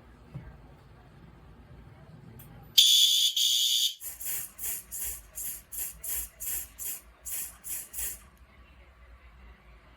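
Fire alarm horn sounding during a system walk test. About three seconds in it gives a loud, high-pitched blast of about a second, then about a dozen short quick pulses, roughly three a second, and stops a little past eight seconds.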